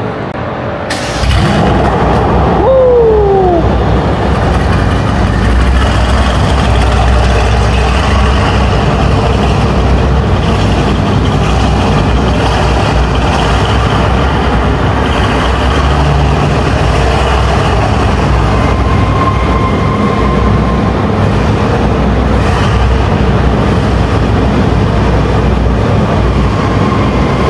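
Mercedes C63 AMG V8 engine firing up about a second in, its revs flaring and falling away, then running with a steady low rumble as the car drives slowly around an underground car park.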